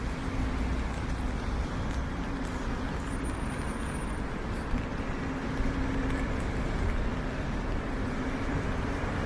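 Steady road traffic on wet pavement, with vehicle engines humming past and wind rumbling on the microphone.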